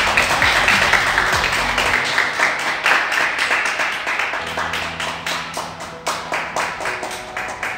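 A small group applauding by hand, the clapping loudest at the start and thinning out gradually, over background music.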